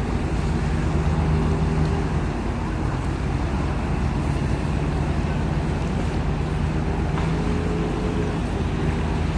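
Passenger ship's engines running with a steady deep hum and a few held tones, under an even rush of wind and water.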